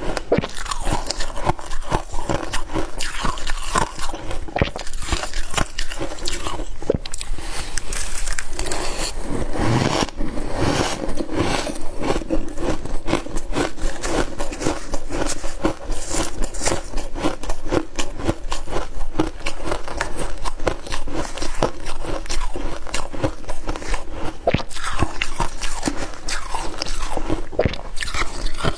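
Close-up bites and chewing of soft freezer frost, a continuous run of crunching and crackling.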